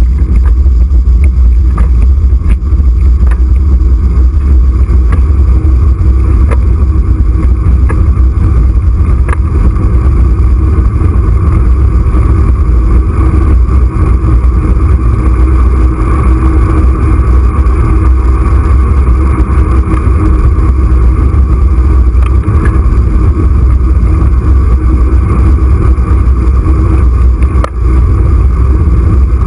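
Wind rushing over the microphone of a camera mounted on a moving bicycle's handlebars, with steady road rumble from the tyres and occasional small knocks.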